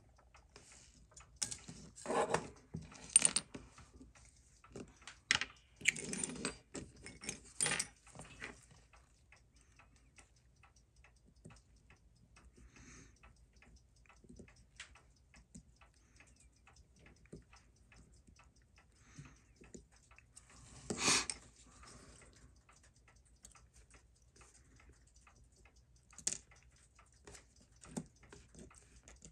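Small metallic clicks and clinks of steel tweezers and a screwdriver working on a Seiko 6139 chronograph movement as it is taken apart, with parts set down. A flurry of clinks comes in the first several seconds, and a louder, longer clatter comes about two-thirds of the way through.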